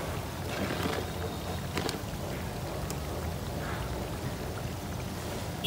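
Steady low background rumble and hiss with a few faint clicks.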